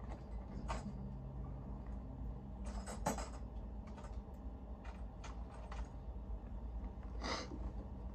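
Scattered light clicks and scrapes of hands working at metal bolts and brackets under an RV step, over a steady low hum.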